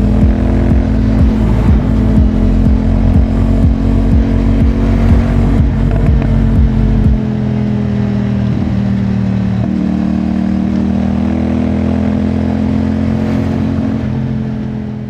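CFMOTO 450SR-S parallel-twin engine running at a steady engine speed. About seven seconds in, the deep low rumble drops away and a steadier hum is left.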